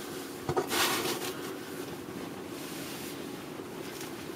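Sheet of paper being handled by hand: a knock and a brief rustle about half a second in, over a steady background hum.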